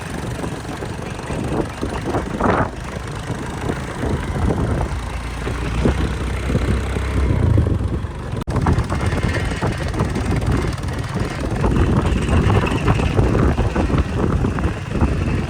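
Diesel engine of heavy earthmoving machinery running steadily. A brief sharp break about eight and a half seconds in.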